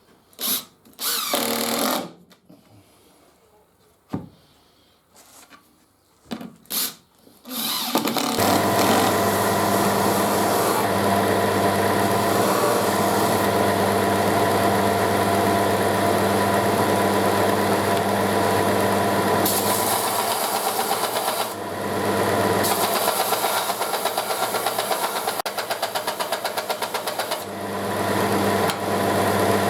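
A few short bursts of noise, then from about eight seconds in an electric power tool motor running steadily under load, its level dipping briefly twice.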